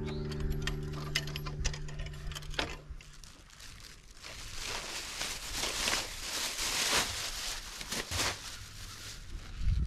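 Background music fading out, then close rustling and light clicking of handling noise while a small bag is handled.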